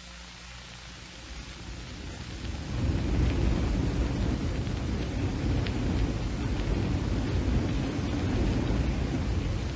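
Radio-drama sound effect of a rocket ship's engines running at full power: a low, noisy rumble that swells up about two to three seconds in and then holds steady over faint hiss.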